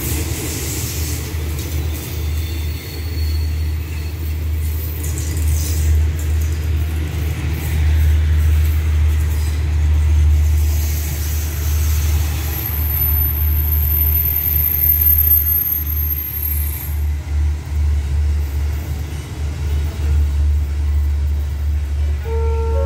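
Long passenger train rolling past on the far track and pulling away, a steady low rumble. Near the end a station chime of stepped tones begins.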